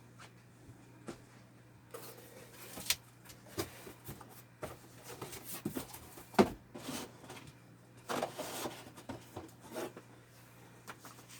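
Box and packaging being handled during unpacking: scattered knocks and clicks with short stretches of rustling, the sharpest knock about six seconds in, over a faint steady hum.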